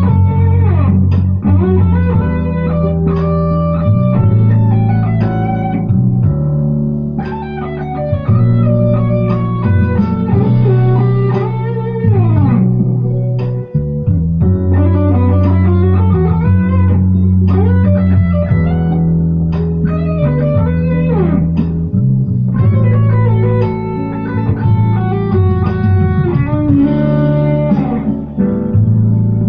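Electric guitar soloing over a jazzy D major backing track with bass guitar, the lead line full of string bends.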